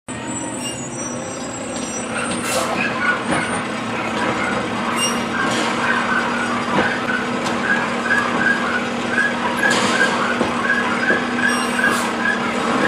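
Automated side-loader garbage truck idling while its hydraulic arm grabs, lifts and tips a wheeled trash cart into the hopper and sets it back down, with several sharp clanks. A rapid high chirping repeats about three times a second through the second half.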